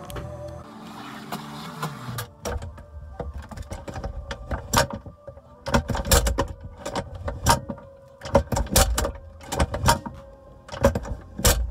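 BMW K1200LT top case lid latches and lock mechanism being worked: a series of sharp, irregular mechanical clicks and knocks, in clusters.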